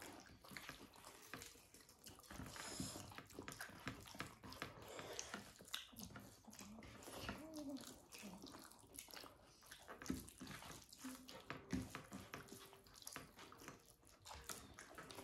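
Faint close-up eating sounds of soft, wet khichdi: chewing, lip smacks and squelching food, with many small scattered clicks.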